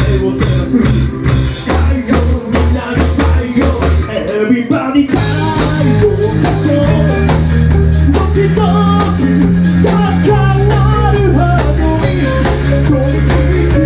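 Live rock band playing loudly: drum kit, electric guitar and bass guitar with singing. About four and a half seconds in the band drops out for a moment, then comes back in with crashing cymbals and held bass notes.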